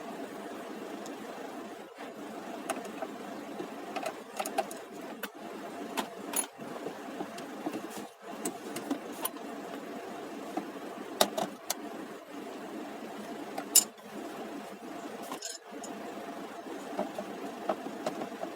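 Irregular sharp clicks and metallic taps, typical of hand tools working on a car's steering column, over a steady hum. The two loudest clicks come about two-thirds of the way through.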